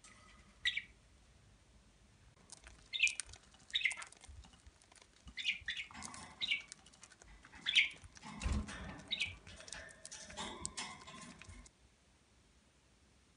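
Budgerigars giving short, sharp chirps over fluttering wings; the sounds cut off suddenly near the end.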